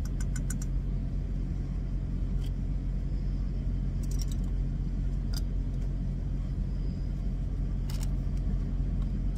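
Steady low hum of a truck's engine idling. A quick run of light metal clicks near the start comes from a spoon stirring in a small metal saucepan, with a few single clicks later.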